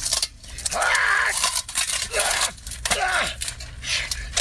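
A person's voice making short cries several times, each bending up and then down in pitch, with sharp clicks and clatter in between.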